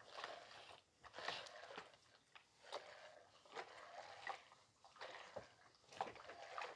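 Steam iron pushed back and forth over clothes on an ironing board: faint repeated swishes of the soleplate and fabric rustling, with a few small clicks and knocks.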